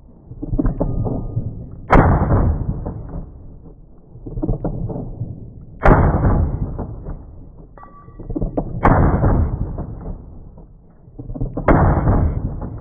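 9mm gunshots into bullet-resistant Lexan, slowed down with the slow-motion footage: four shots about three to four seconds apart, each a sudden crack that fades slowly over a couple of seconds.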